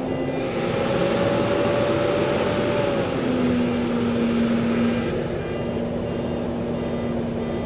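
Heavy diesel machinery running hard, a loud steady engine noise with a whine on top that drops in pitch about three seconds in.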